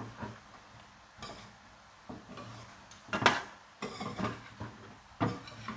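A metal spoon scraping and clinking against a stainless steel pot as pork legs in thick soy sauce are stirred, in irregular knocks, the loudest about three seconds in.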